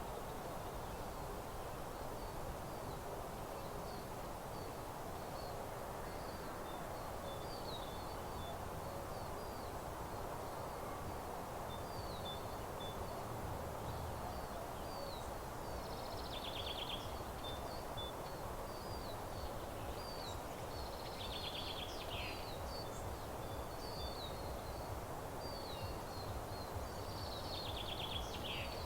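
Small songbirds singing in a meadow: a run of short high chirps repeated throughout, and about three louder, quickly falling trilled phrases in the second half, over a steady low background hiss.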